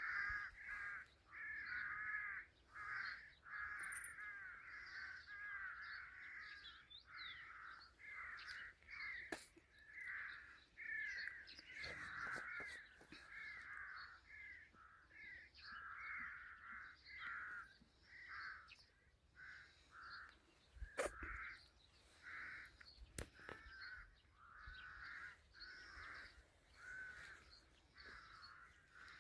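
An animal crying over and over in short, high, pitched calls, about one or two a second, with a few sharp clicks in between.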